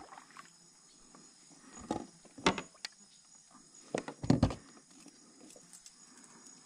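Steady high-pitched chorus of insects, with a few scattered knocks and thuds about two seconds in and again about four seconds in.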